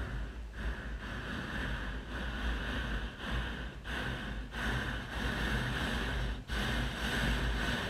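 Hot air balloon's propane burner firing into the envelope, a steady loud rush broken by a few brief dips.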